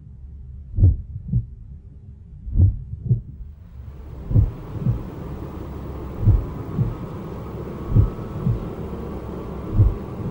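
Slow heartbeat sound effect: pairs of low thumps, lub-dub, repeating about every two seconds. A soft hiss fades in about four seconds in and continues under the beats.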